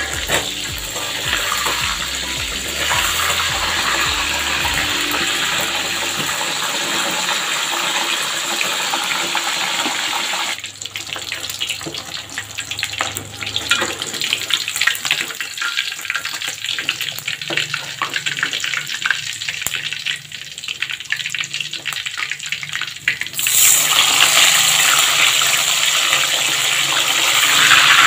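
Whole fish deep-frying in hot oil in a steel wok: a steady sizzle full of small crackling pops, which gets louder about two-thirds of the way through.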